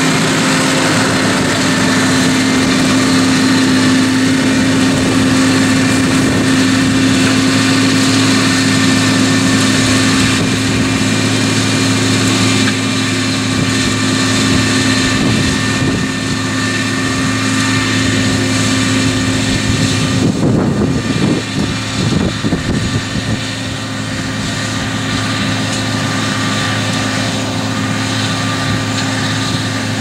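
Tractor diesel engine running steadily under load as it drives a Kuhn power harrow through dry, ploughed soil, a constant drone. A patch of uneven rumbling comes about two-thirds through, and it is a little quieter after that.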